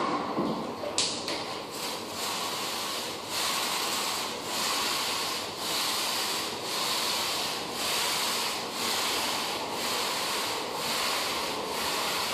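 Rhythmic rubbing strokes across a hardwood floor, about one a second, with a short knock about a second in.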